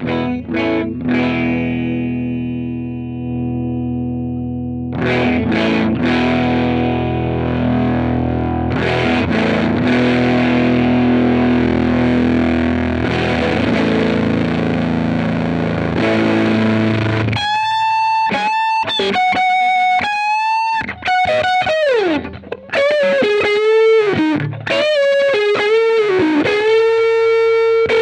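Electric guitar with a distorted tone, played through a Ground Control Serpens optical boost/compressor pedal. Sustained, ringing chords come first; about two-thirds of the way in it switches to a single-note lead line with string bends and vibrato.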